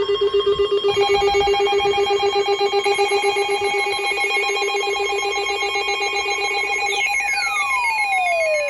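Weather radios sounding their alert alarms for a special marine warning: several electronic beeping tones overlap, one low tone pulsing rapidly and others joining higher up. About seven seconds in, falling sweep tones start gliding down.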